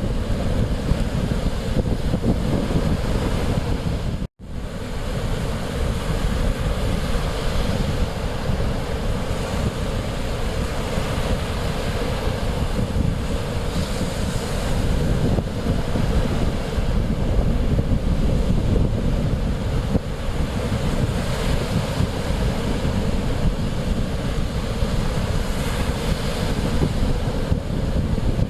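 Mediterranean Sea surf washing on the shore, steady and continuous, with heavy wind rumble on the microphone. The sound cuts out completely for an instant about four seconds in, then resumes.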